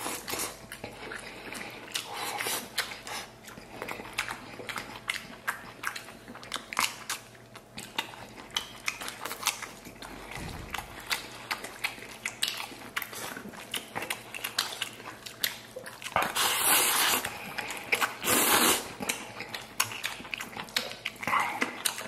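Close-up chewing and biting of braised pork belly and pickled cabbage with rice, with many small wet mouth clicks throughout. Near the end there are two louder breathy bursts, about two seconds apart.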